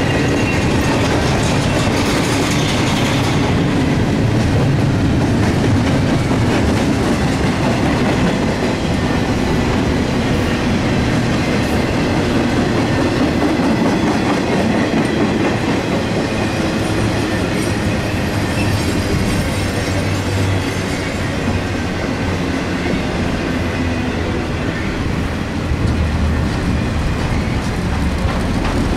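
A CSX intermodal freight train's double-stack well cars and trailer flatcars rolling steadily past: a continuous rumble with the clatter of wheels over the rail joints.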